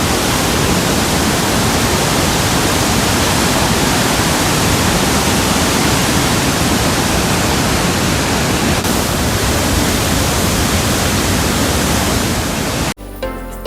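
Augrabies Falls on the flooded Orange River: a loud, steady rush of falling water. It cuts off suddenly near the end, and soft music comes in.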